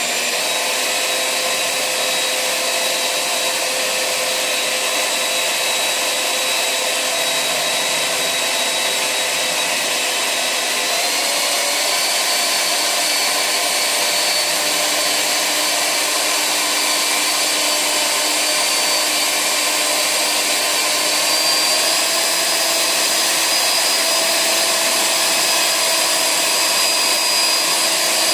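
Corded electric paddle mixer running steadily while stirring water-thinned paint in a plastic bucket. Its motor whine steps up in pitch about a third of the way in and again later, as the speed is raised.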